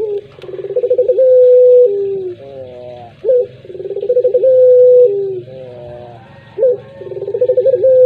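Puter pelung, a long-calling variety of domestic ringneck dove, cooing three times, about every three seconds. Each call is a quick stuttering run of notes that opens into a long held coo and ends on a lower, falling note.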